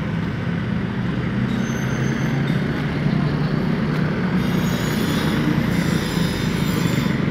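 Motor vehicle engine running steadily with road noise, getting slightly louder; a thin high whine comes and goes above it from about a second and a half in.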